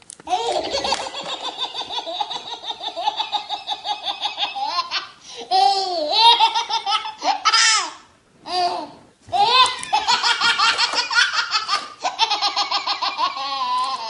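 A baby laughs hard in long fits of rapid, pulsing belly laughter, broken by short pauses about five and nine seconds in.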